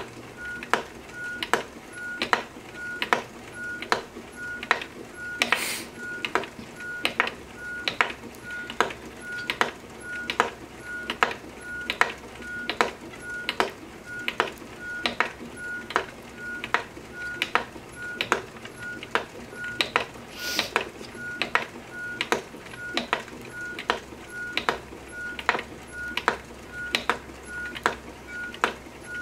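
Wooden treadle spinning wheel running while yarn is spun, its drive giving a regular click about twice a second with a faint high squeak pulsing in step. Two brief hisses break in, about a third of the way in and again two-thirds through.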